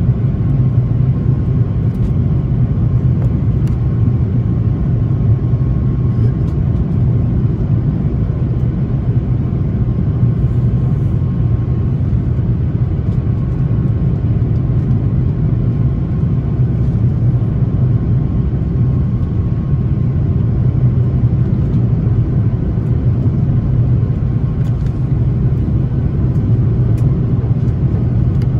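Steady cabin noise inside an Airbus A330-300 on final approach: a constant low rumble of airflow and its Rolls-Royce Trent 700 engines, with a faint steady whine on top.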